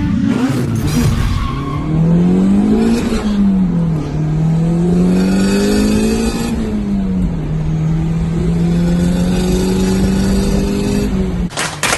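Car engine under acceleration: its pitch climbs and falls back twice, like revving up through gear changes, then holds steady. Near the end it gives way to rapid clattering clicks.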